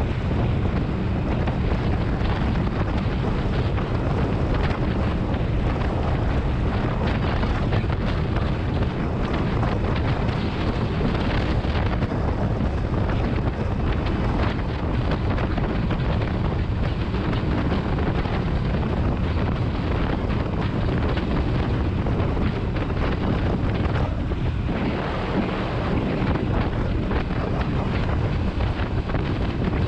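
Steady, loud wind buffeting the microphone, a continuous low rumble with hiss above it and no distinct events.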